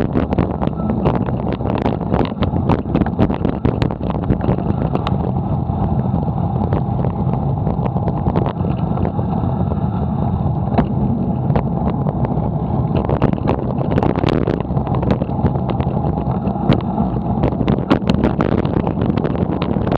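Steady rumbling road and wind noise picked up by a bicycle-mounted camera riding in traffic, with frequent small rattles and knocks from the bike and mount over the road surface.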